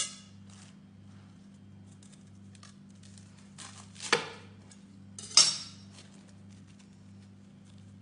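Knife cutting through a pan-toasted sandwich: the crisp crust crunches and scrapes in two short, loud bursts about four and five and a half seconds in, with small clicks of the blade in between.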